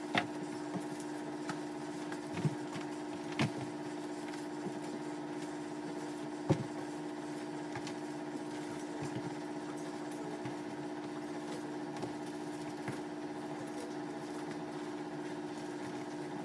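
A steady low machine hum, with a few sharp clicks and light rustling as plastic-wrapped items are handled and dropped into plastic storage bins. The loudest click comes about six and a half seconds in.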